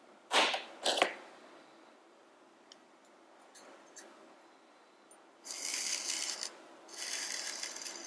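A tealight tin and a ceramic oil burner being handled: two sharp scrapes just after the start as the tealight slides into the burner's base, a few light ticks, then two longer rasping scrapes in the second half as the ceramic burner is turned round on the surface it stands on.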